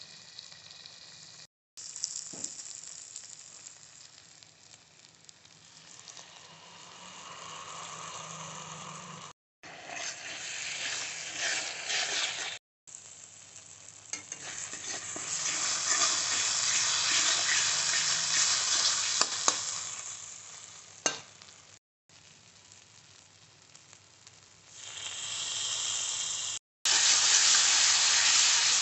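Onion and spice masala sizzling in oil in a non-stick kadai as it is fried down, with a spatula stirring and scraping it across the pan. The sizzle swells and fades across several short clips separated by abrupt breaks, and is loudest near the end.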